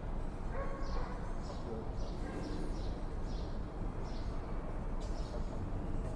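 Swallows giving a string of short, high, down-slurred chirps, about one every half second to a second, over a steady low background rumble.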